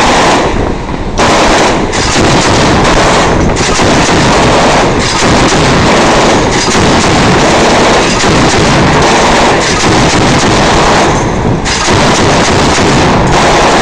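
Mk 38 25 mm chain gun (M242 Bushmaster) firing long, very loud bursts, with short pauses about a second in and near the end.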